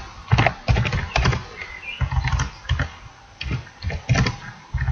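Computer keyboard typing in quick bursts of keystrokes with short pauses between them.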